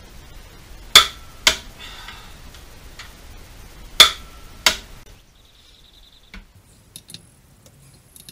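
Click-type torque wrench clicking as it reaches its set torque on a rear axle nut: two sharp double clicks, about three seconds apart.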